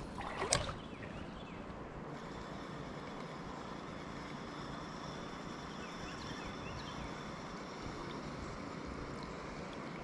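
Chattooga River water running steadily over its bed, an even rushing. About half a second in there is one short sharp sound, a knock or splash.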